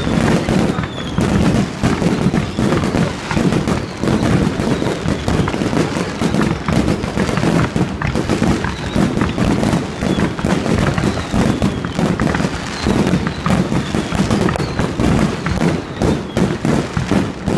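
Aerial fireworks display going off without a break, a dense run of bangs and crackles with no pause.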